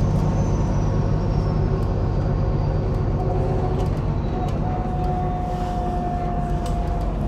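MAZ-103 city bus heard from inside while under way: the steady hum of the diesel engine and road noise, with a faint high whine slowly falling in pitch and, from about halfway in, a steady mid-pitched whine.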